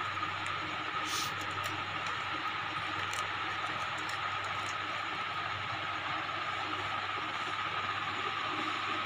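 Steady machine-like hum with a constant high whine. About a second in comes a short crackle, likely the paper wrapper being pulled off a razor blade.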